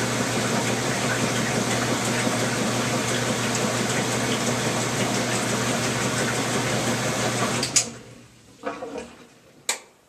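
Whirlpool top-loading washing machine running with a steady rush of water and a low hum. About three-quarters of the way through it cuts off with a click, and a couple of fainter knocks and another sharp click follow as the machine goes quiet.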